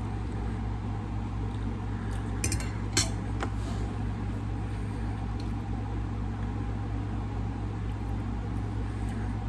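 A few light clinks of cutlery against dishes, the sharpest one about three seconds in, over a steady low hum.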